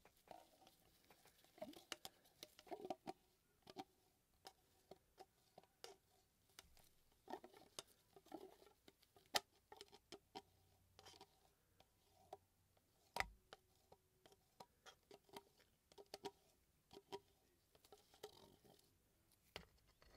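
A plastic stir stick clicking, tapping and scraping against plastic cups while resin is mixed and poured. The taps are faint and irregular, with a few sharper knocks, one about thirteen seconds in with a dull thump.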